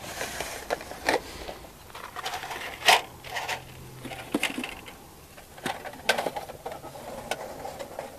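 Irregular light metallic clicks, taps and scrapes of small camp cookware and stove parts being handled and set in place, with one sharp click about three seconds in.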